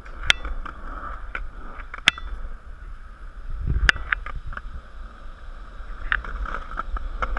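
Skateboard rolling on a concrete path: a steady rumble of the wheels, with a few sharp clacks as they cross the joints in the pavement.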